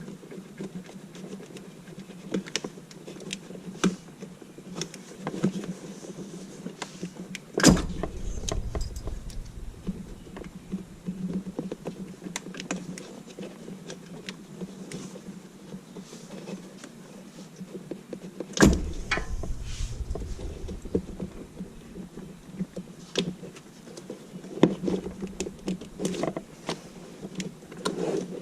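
Scattered light clicks and rattles of hand tools and parts being handled, with two sharp louder knocks about 8 and 19 seconds in, each followed by a short low rumble, over a steady low hum.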